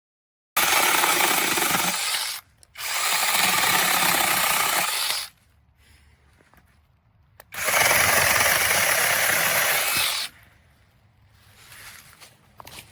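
Brushless battery chainsaw running at full speed in three bursts of about two seconds each, cutting into wood, with quieter pauses between the bursts.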